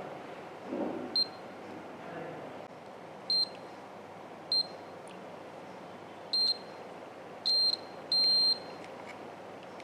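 Digital multimeter's continuity buzzer giving about six short high-pitched beeps as the probes touch one resistor after another on a phone motherboard, with one longer beep near the end. The beep on each resistor is taken as the resistor being good.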